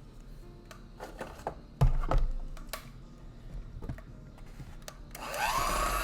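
Light knocks and a thump of kitchen utensils, then about five seconds in an electric hand mixer switches on, its motor whine rising and then holding steady as it starts beating the cake batter.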